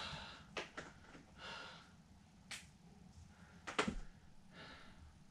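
Faint handling sounds of a pen writing on a paper chart on a wall: a few short scratchy strokes and several sharp clicks and taps, the loudest just before four seconds in.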